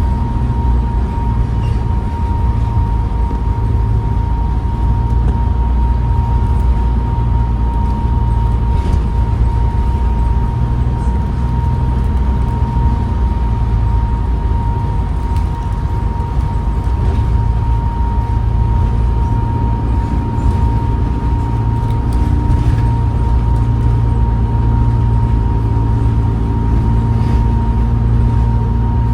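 Diesel bus heard from inside while on the move: the engine and ZF automatic gearbox running, the low rumble swelling and easing, with a steady high whine throughout. The gearbox is described as knackered, and a turbo whine is noted on this bus.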